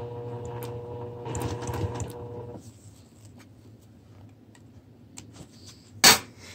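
Juki TL2200QVP Mini sewing machine running steadily while free-motion quilting, stopping after about two and a half seconds. A few light clicks follow, then a single sharp clack about six seconds in.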